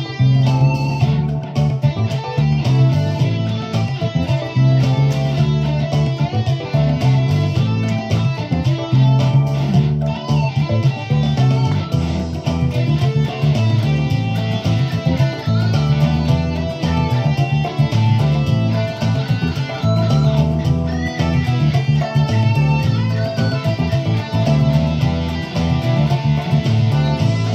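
Stratocaster-style electric guitar playing a boogie, picked without a break.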